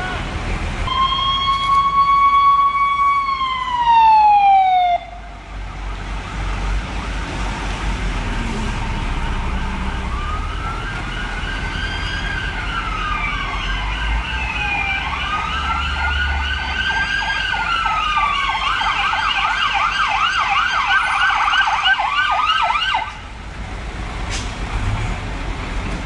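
Fire engine sirens. First a steady siren tone that slides down in pitch and dies away about five seconds in; then an electronic wail rising and falling, switching to a fast yelp that cuts off suddenly about three seconds before the end.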